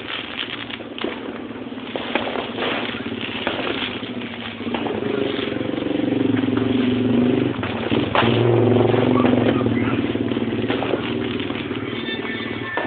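An engine running and revving, getting louder for several seconds in the middle, with scattered sharp bangs; the loudest bang comes about eight seconds in.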